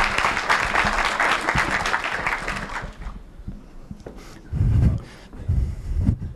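Audience applauding, the clapping dying away about three seconds in. This is followed by two dull, low thumps.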